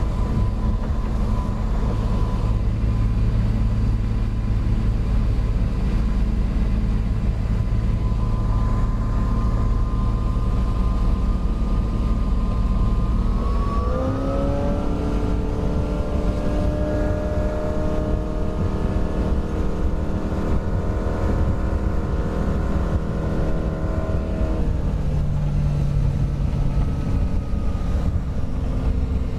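MerCruiser 5.7-litre V8 sterndrive running under way, the runabout moving at speed over choppy water. About 14 seconds in the engine note rises quickly and holds higher, then drops back near 25 seconds.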